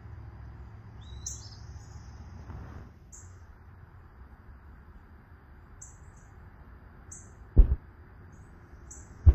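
Small birds chirping: short, high chirps every second or two, with a brief rising call about a second in, over a low steady rumble that fades out about three seconds in. Two sharp, loud low thumps come about seven and a half seconds in and again at the very end.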